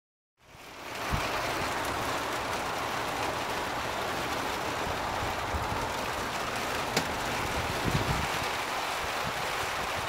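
Steady rain falling, fading in over the first second, with a few brief low thumps and a single sharp tick about seven seconds in.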